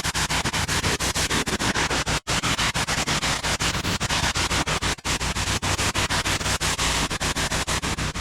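Pressure-washing rig at work: a steady low engine hum under loud, rapidly fluttering hiss of water spray.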